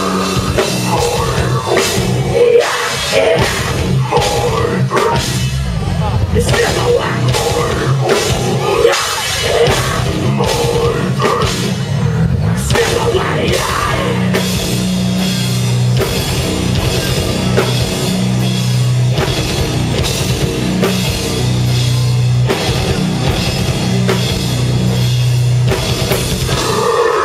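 Rock band playing live and loud in a heavy-metal style, with drum kit and held low notes running under the song from about halfway through.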